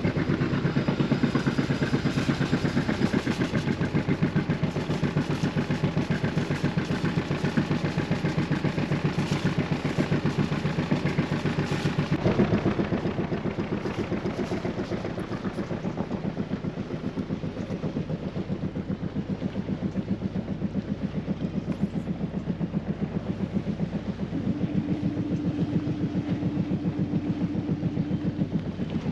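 Fishing boat's engine running at low speed with a steady, pulsing beat. It gets a little quieter about twelve seconds in, and a higher hum joins for a few seconds near the end.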